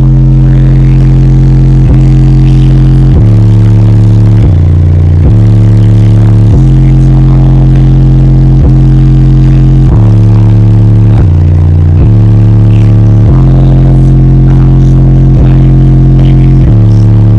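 Car audio subwoofers playing a bass-heavy song at extreme volume, heard inside the cabin: a deep bassline stepping between held notes about every second, loud enough to peg the recording at full level.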